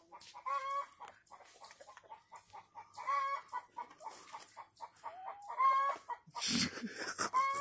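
Backyard chickens clucking: a series of short calls, with a louder, harsher call near the end.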